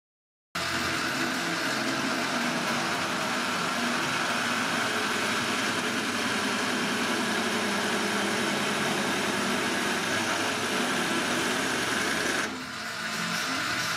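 Myford ML7-R lathe running while a twist drill bores into a spinning metal workpiece: steady machine and cutting noise that starts abruptly about half a second in and dips briefly near the end.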